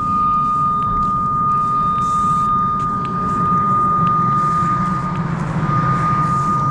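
Cable locator receiver sounding one steady high tone, a strong response that shows it is peaked over the traced coax cable. A low rumble sits beneath it.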